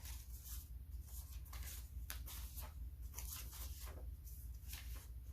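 Handwriting: a run of short scratchy pen strokes forming cursive letters, over a steady low hum.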